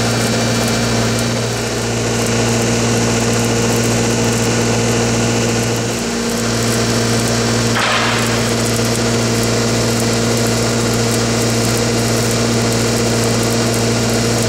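Shielded metal arc (stick) welding: the arc of a cellulose rod crackling and hissing steadily as it is run uphand on a large-diameter pipeline weld. Underneath is the steady hum of the engine-driven welding machine powering it.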